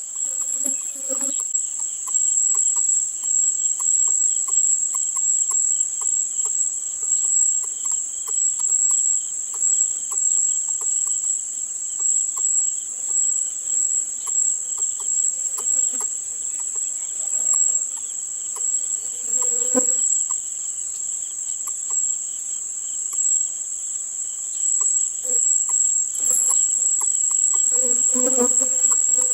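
A steady, high-pitched drone of insects that runs without a break. A few short low calls stand out briefly about a second in, near 20 seconds and again near the end.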